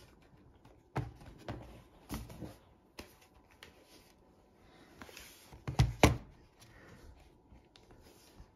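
Knocks and thumps of a Lenovo ThinkPad X240 laptop being handled, turned over and set down on a wooden table, with the loudest pair of knocks about six seconds in.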